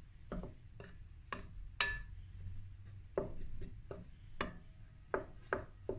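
Flour and spices being mixed by hand in a glass mixing bowl: irregular knocks and clinks against the glass, about ten in all, the loudest a sharp ringing clink about two seconds in.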